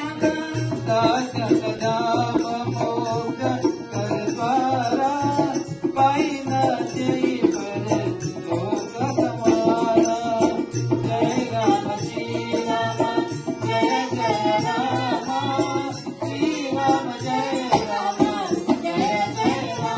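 Indian devotional bhajan music: a dholak drum and dhantaal and jhaal cymbals keep a fast, steady rhythm under a wavering melody line.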